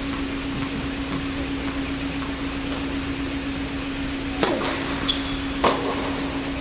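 Tennis ball struck hard on an indoor hard court: a sharp hit about four and a half seconds in, most likely the serve, and another about a second later, with a brief shoe squeak between, over the steady hum of the hall's ventilation.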